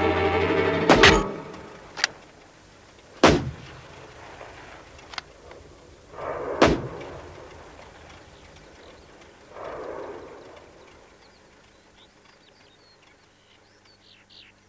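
A loud steady sound with held tones fades out about a second in, giving way to a handful of sharp, loud bangs spaced one to three seconds apart. Near the end, birds start chirping.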